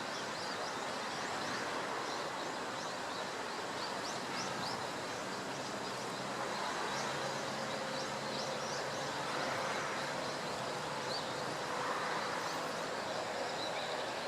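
Steady rushing outdoor background noise at an even level, with many faint, short, high chirps scattered through it.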